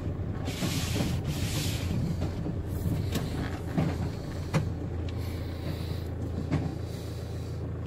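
Vehicle engine idling with a steady low hum, heard from inside the cab. Two short swishing scrapes come near the start, and a few sharp clicks and knocks follow through the middle.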